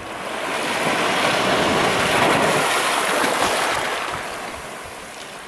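A small wave washing up over a coral-rubble shore. The rush of water swells for about two seconds, holds, then ebbs away.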